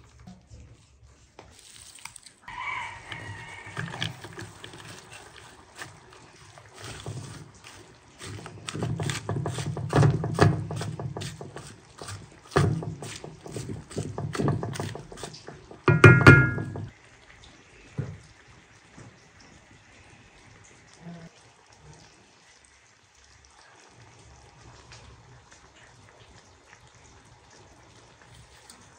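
Wooden spoon stirring sliced onions and lamb in a stone-coated pot, with repeated knocks and scrapes against the pan, busiest between about 8 and 17 seconds. There is a loud knock with a short ringing tone near 16 seconds, then only faint low noise.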